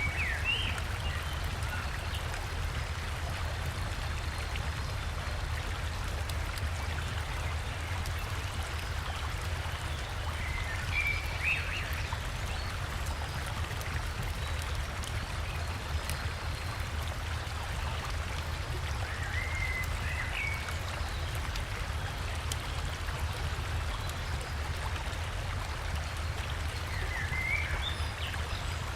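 Steady rush of flowing river water with a low rumble beneath it, and four short bird calls spaced several seconds apart.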